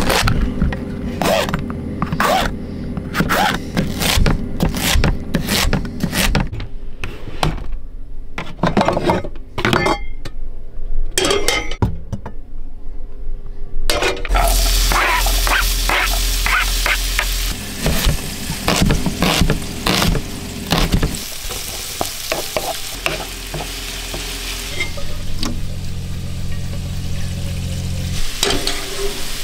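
A knife chopping vegetables on a plastic chopping board in a run of quick knocks. From about halfway, food sizzles and fries in a non-stick frying pan on a gas hob. Near the end there is a steady hum from the van's electric water pump as the tap runs into a pot.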